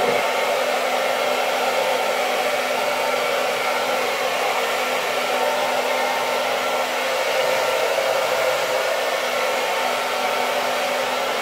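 Handheld hair dryer running steadily while drying hair: a constant rush of blown air with a steady motor hum underneath.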